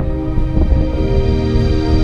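Background music: sustained, moody ambient tones over a steady low pulse.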